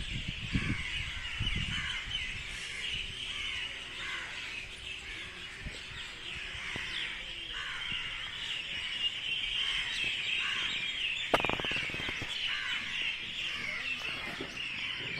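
Morning chorus of many small birds chirping and twittering together without a break. A few low thumps come near the start, and a single sharp click about eleven seconds in.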